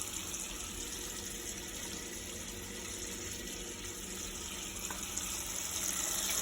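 Steady sizzle of hot oil frying pieces of pig tail.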